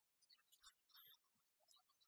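Near silence, with only faint scattered ticks and crackle.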